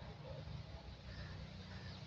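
Outdoor background noise: a low, steady rumble with a few faint, short calls from further off.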